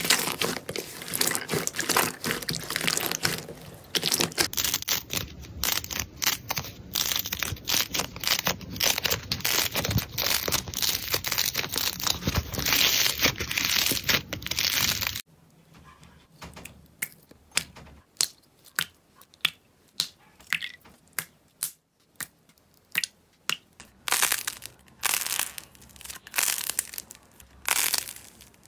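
Hands kneading and squeezing slime: a dense run of squelching and crackling. About halfway through it drops to a quieter stretch of separate crackling pops, roughly one or two a second, as a soft clay-like slime is pressed.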